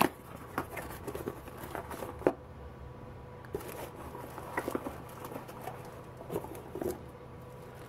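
Scattered small clicks, taps and plastic-bag rustles as bagged steel tool-post parts are handled and a lever handle is set down on a towel, over a faint steady hum.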